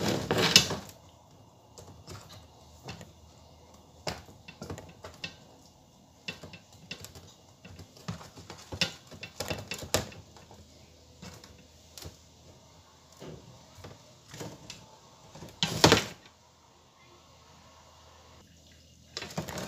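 Scattered light clicks and knocks of hands placing sliced tomato and onion onto chicken pieces in a baking tray, with two louder knocks, one about half a second in and one near sixteen seconds.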